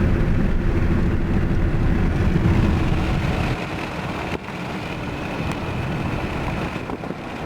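A Chevrolet Malibu driving along, with engine and road noise. The heavy low rumble drops away suddenly about three and a half seconds in, leaving a lighter steady running noise.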